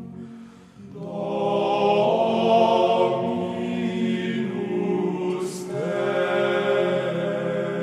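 Background music of sustained choral chanting, the voices holding long notes. It dips near the start and swells back in about a second in, with a brief hiss about five and a half seconds in.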